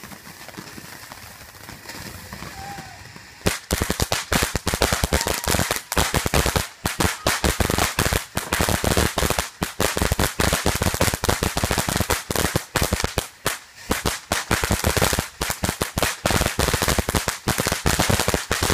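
Ground fountain firework hissing as it sprays sparks, then about three and a half seconds in breaking into loud, rapid crackling that carries on without a break.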